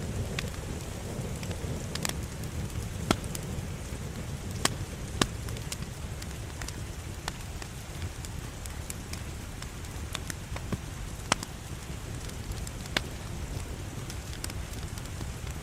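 Wood fire burning in a fireplace: a steady low rumble of the flames with scattered sharp crackles and pops, a few of them louder, several seconds apart.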